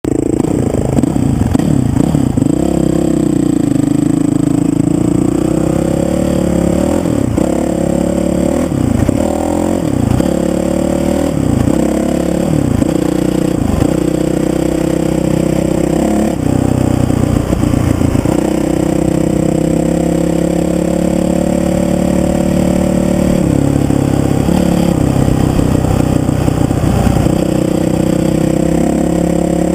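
Dirt bike engine running under way, its pitch dropping and rising again and again through the first half with throttle and gear changes, then holding steadier.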